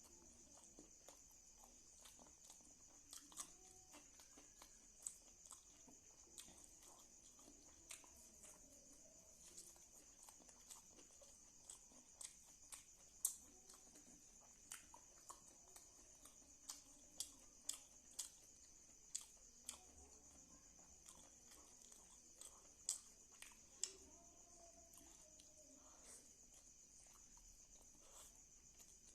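Close-up eating sounds of a person eating kadhi pakora with rice: irregular wet chewing and lip-smacking clicks, a few of them sharp and loud. A steady high-pitched whine runs underneath.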